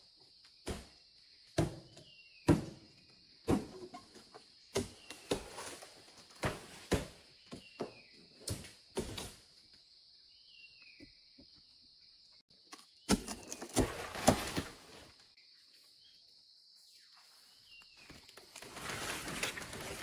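Irregular sharp knocks and thuds, roughly one a second for the first ten seconds, then a denser cluster of knocks and rustling about thirteen seconds in, over a steady high hiss.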